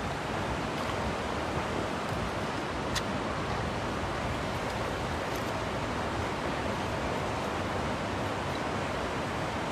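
Steady rushing noise of a shallow river flowing, with a single faint click about three seconds in.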